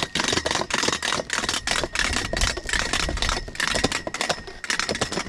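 Rapid clicking of a spinning prize wheel made from a bicycle wheel, the ticks spacing out toward the end as the wheel slows.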